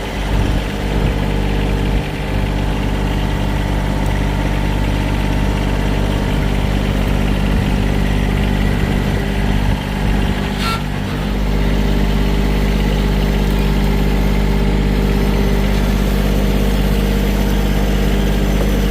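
Vehicle engine running steadily at an even pitch, with a brief click about eleven seconds in.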